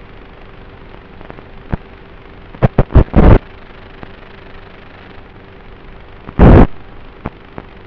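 Steady hiss with a faint hum on the audio track of an FPV flying wing's video downlink, broken by a quick cluster of very loud crackling bursts about two and a half seconds in and one more near six and a half seconds, with a few small clicks between.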